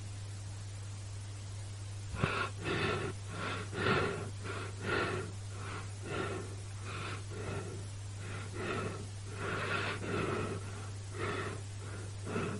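Quick, repeated gasping breaths, about two a second, starting about two seconds in, over a steady low hum.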